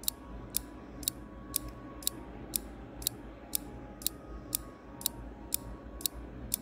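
Countdown timer sound effect ticking, a sharp clock-like tick about twice a second over a faint low hum, marking the seconds left to answer the quiz question.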